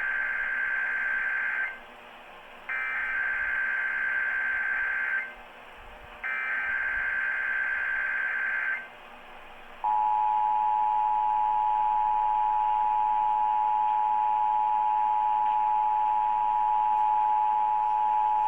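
Emergency Alert System test tones heard over AM radio. There are three bursts of the SAME digital header, a buzzy data warble. About ten seconds in, the steady two-tone EAS attention signal starts: 853 and 960 Hz sounding together.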